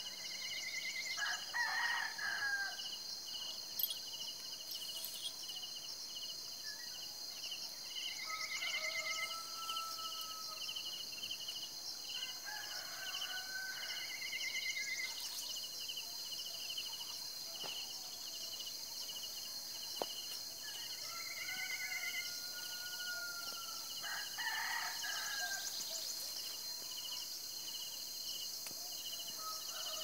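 A steady evening chorus of insects, crickets among them, with an evenly pulsing chirp, while a rooster crows again and again every several seconds.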